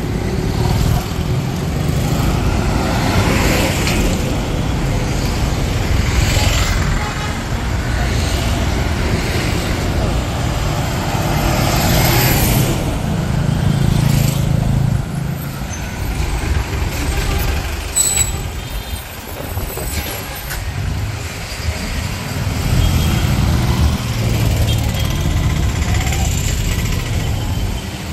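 Road traffic: a steady low engine and road rumble, with buses, cars and motorbikes passing several times and swelling louder as each goes by.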